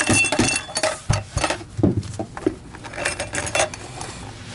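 Metal clinks and clattering as the Filter Queen Majestic vacuum's canister and parts are handled and set down, with a brief metallic ring near the start; the clatter comes in three spells and eases off near the end.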